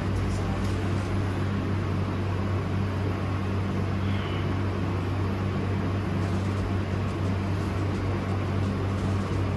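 Steady low mechanical hum under a constant hiss.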